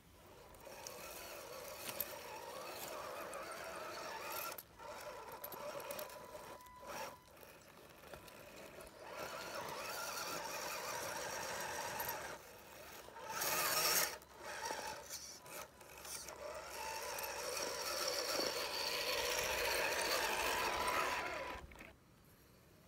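RC4WD Trail Finder 2 scale crawler's electric motor and gearbox whining as it drives over loose slate, in stretches that start and stop. There is a loud, noisy burst about 14 seconds in, and the whine cuts off abruptly near the end.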